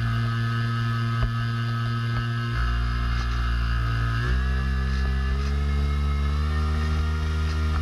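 Swamp Dawg RC airboat's motor and air propeller running close to the microphone. The note steps down about four seconds in and then climbs gradually as the throttle is opened again.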